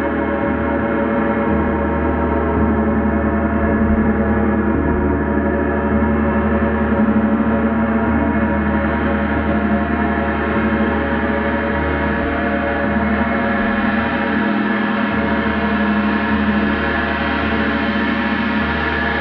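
Gong played continuously in a steady, sustained wash of many overlapping ringing tones, with no single strike standing out. It swells a little now and then and grows slightly brighter toward the end.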